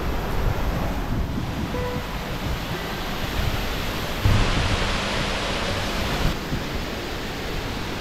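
Steady rushing of the Rhaeadr Mawddach waterfall, growing louder and brighter for about two seconds past the middle, over a low rumble of wind on the microphone.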